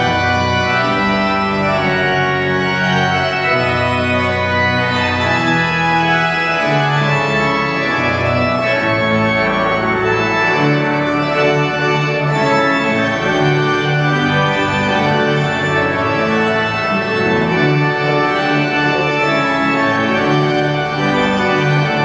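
Church organ playing a postlude: sustained full chords that change every second or so over a moving bass line.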